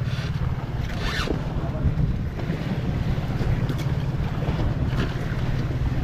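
Boat engine running steadily with an even low pulse, with a short zip-like scrape about a second in.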